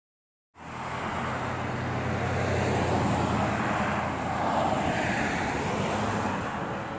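Road traffic: vehicles driving by on the road, a steady rush of engine and tyre noise with a low hum. It starts abruptly about half a second in.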